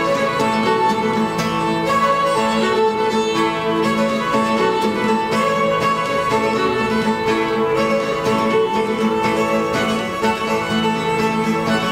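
Fiddle and acoustic guitar playing an old-time fiddle tune, the fiddle carrying the melody over the guitar's steady backing.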